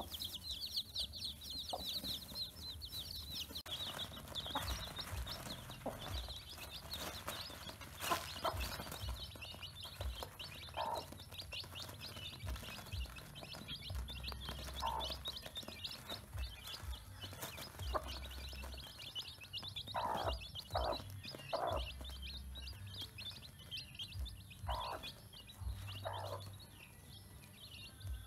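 Newly hatched chicks peeping continuously in a rapid, high-pitched chorus, with a hen's lower clucks breaking in now and then, several close together about two-thirds of the way through.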